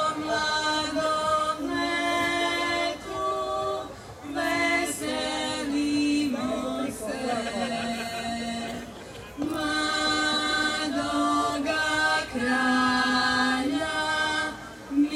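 A small group of women singing a slow song a cappella in unison, holding long notes phrase by phrase with short breaths between.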